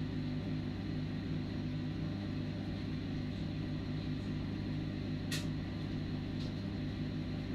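A steady low mechanical hum, like a motor or appliance running, with one sharp click about five seconds in.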